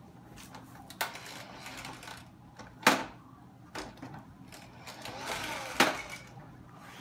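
Toy fire engine being handled and moved on a wooden floor: scattered plastic clicks and knocks, the loudest about three seconds in.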